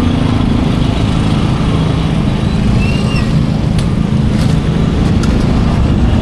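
Street traffic: a small engine runs steadily close by, making a continuous low drone, and a car approaches.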